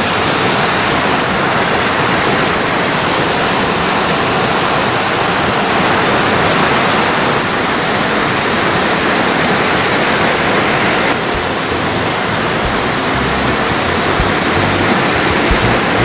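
Mountain-stream waterfall pouring over rock ledges into a pool: a loud, steady rush of white water. The stream is running high after the previous day's rain.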